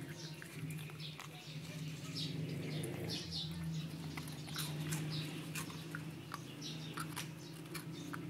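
A dog's mouth working at a crunchy cracker held out by hand: many small, irregular crunches and smacking clicks as it nibbles, over a steady low hum.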